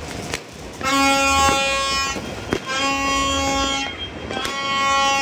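A horn sounded in three long, steady blasts of about a second each, with the sharp cracks of distant firecrackers and fireworks scattered between them.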